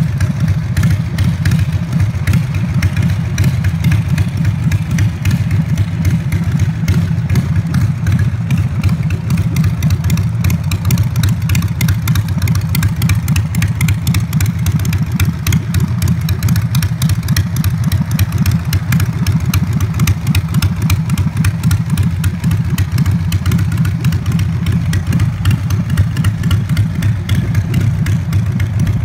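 Custom Harley-Davidson bobber's V-twin engine idling steadily.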